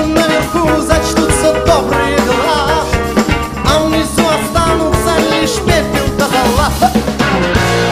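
Rock band playing live, with a man singing lead over drum kit and electric bass.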